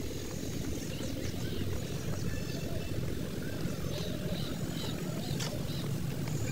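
Outdoor park ambience: a steady low rumble, with small birds chirping now and then.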